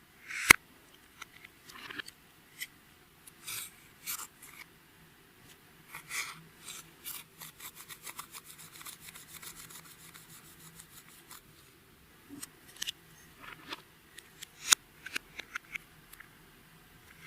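Clear slime being worked by hand, giving sticky clicks and small crackling pops. A quick, dense run of little pops comes in the middle, and a cluster of sharper clicks comes near the end.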